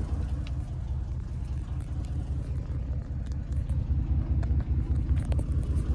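2012 Ram 1500 pickup's engine idling steadily, a low even rumble heard from inside the cab, with a few light clicks over it.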